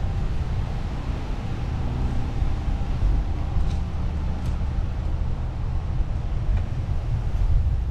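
Steady low rumble of a car driving, heard from a camera mounted on its roof: road and tyre noise mixed with wind buffeting the microphone.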